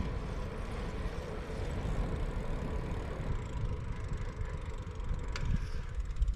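Wind buffeting a GoPro's microphone on a road bike rolling along asphalt, a steady low rumble with tyre noise. There is a single sharp click about five seconds in.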